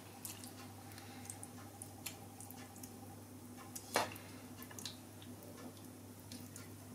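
Spoon spreading minced-meat tomato sauce over lasagne sheets: faint wet squishes and small clicks, with one sharper clink of the spoon against the frying pan about four seconds in, over a low steady hum.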